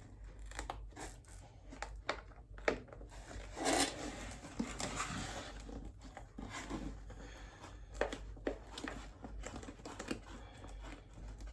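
Hands handling a small box and stick-on acrylic hinges: scattered light taps and clicks, with a short scratchy, tearing-like rustle about four seconds in.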